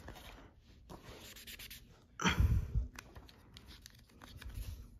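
Imagine Ink marker scribbling on a coloring-book page in short, soft rubbing strokes. A little after two seconds comes a louder rustling thump, the loudest moment, and light clicks and paper handling follow.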